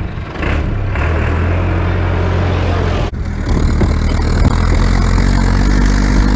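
Massey Ferguson 390 tractor engine running steadily with a low hum. About three seconds in it cuts to another tractor engine, slightly louder, heard from inside the cab while driving along a field track.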